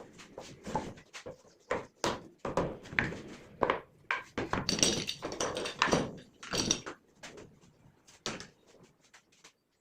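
Irregular series of knocks and clatters of wooden pieces being handled and set down, busiest in the middle and stopping shortly before the end.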